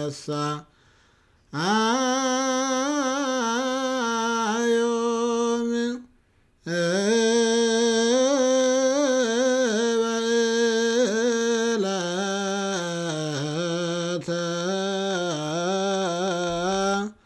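A man chanting a Ge'ez liturgical hymn of the Ethiopian Orthodox Church solo, without accompaniment, on long held notes with wavering ornaments. He breaks off briefly twice, about a second in and about six seconds in.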